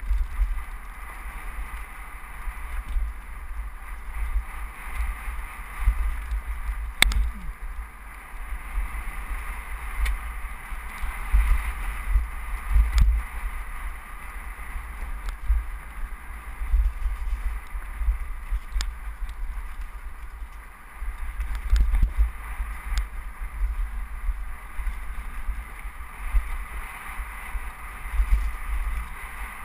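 Wind buffeting the microphone of a helmet-mounted action camera on a fast mountain-bike descent, with the rolling noise of tyres on loose rock and a few sharp clicks and knocks as the bike rattles over stones.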